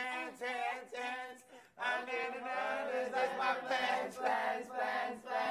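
A group of young men and women singing together without instruments, with a short break about a second and a half in.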